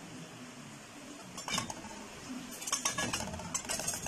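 Knife blade clicking and scraping against a stainless steel plate while cutting rolled omelettes into pieces: a couple of strikes about a second and a half in, then a quicker run of them in the second half.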